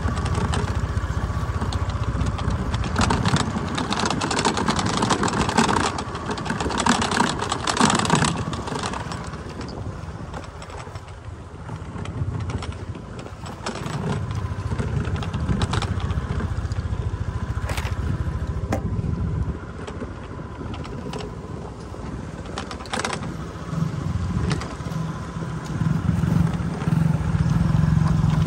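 Motorcycle engine running while being ridden along a rough dirt road, with road noise over it and a few sharp knocks from bumps. The sound is louder in the first third and eases off about ten seconds in.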